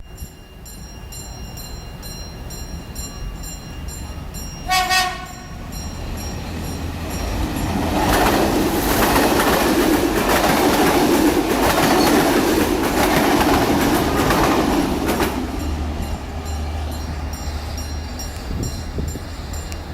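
A train gives one short horn blast about five seconds in, then passes close by. Its rumble and wheel noise build, are loudest from about 8 to 15 seconds, then fade.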